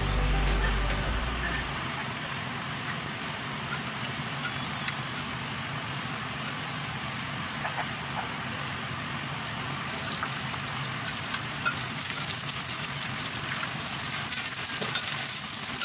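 Food frying in canola oil in a glass pot: a steady sizzle that turns more crackly about ten seconds in. A wooden spoon stirs the pot near the end.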